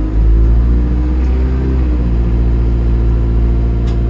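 Bus diesel engine running under way, heard on board: a loud, steady low drone whose note shifts about two seconds in. The bus has a leaking turbo.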